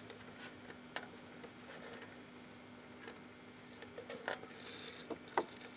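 A sticker being picked at and peeled off by hand: faint scratchy handling noises with a few light clicks and a short rustle a little past four seconds in, over a faint steady hum.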